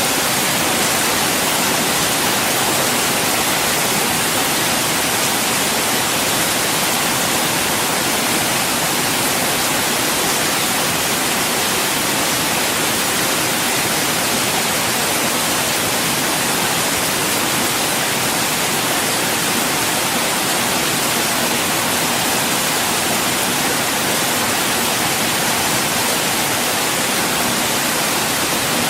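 Light rain falling as a steady, even hiss with no separate drops standing out and no change in level.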